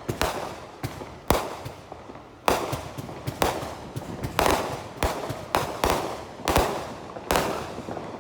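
Fireworks going off in quick, irregular succession, about one or two sharp bangs a second, each trailing off in an echoing crackle.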